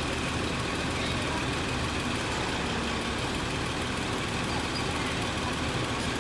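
Diesel engine of heavy piling machinery running steadily, an even mechanical rumble without strikes or load changes.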